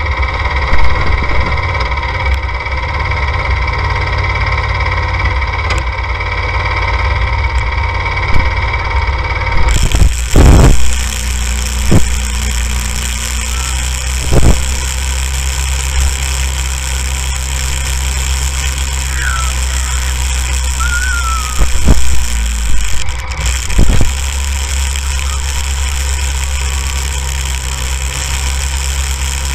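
Go-kart engine running steadily as the kart drives over snow, with the sound changing abruptly about ten seconds in. Several loud thumps break in, in a cluster about ten to fifteen seconds in and again near twenty-two to twenty-four seconds.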